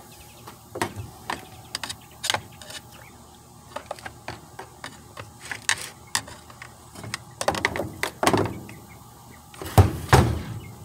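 Handling noise from a Craftsman chainsaw being worked on with a screwdriver: scattered light clicks and knocks of tool and plastic housing. A few heavier thumps in the last few seconds as the saw is lifted and turned over on the metal table.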